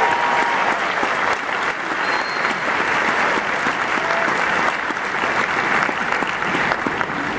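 A large crowd applauding, a dense steady clatter of many hands that eases off slightly toward the end.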